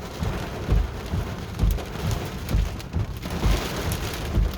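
Rain beating on a car, a steady hiss with irregular low thumps.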